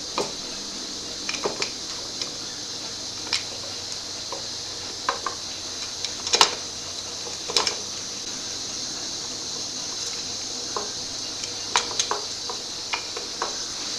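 Hand tools and small metal engine parts clinking and tapping at irregular intervals, about fifteen light knocks, over a steady high hiss.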